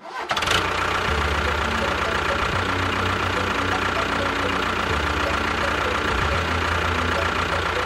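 A small motor running steadily, with a constant high whine over a low clattering rumble.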